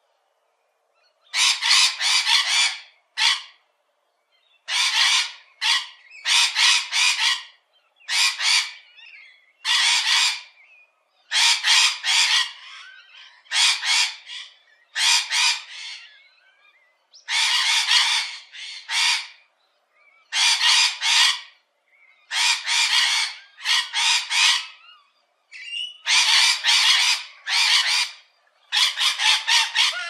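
Parrot screeching: harsh, rasping calls that come in quick clusters of two to four, one cluster every second or two. They begin about a second in.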